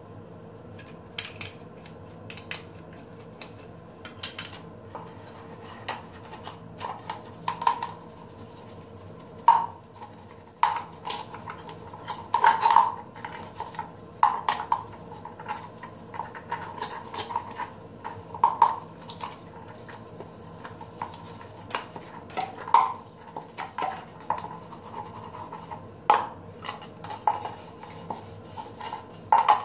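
An old toothbrush scrubbing the hard plastic trap parts of a bathroom floor drain. The pieces give irregular clicks and knocks as they are handled and turned over, over a faint steady hum.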